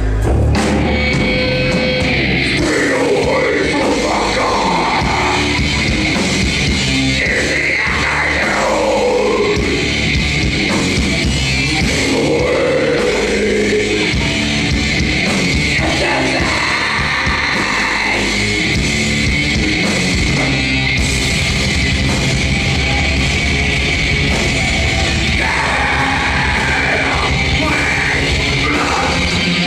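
Live heavy metal band playing loud: distorted electric guitars and drums, with a vocalist yelling and singing over them.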